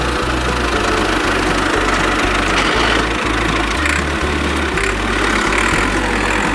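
A vehicle engine running steadily, over background music with a low bass line.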